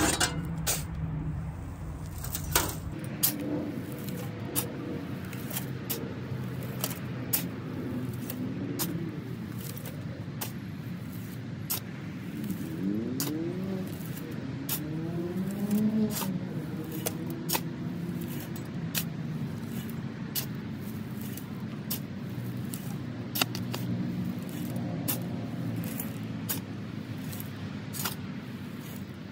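Steel shovel digging into loose soil and tipping it into a metal wheelbarrow: repeated scrapes and sharp clinks, with the hum of road traffic and a vehicle passing partway through.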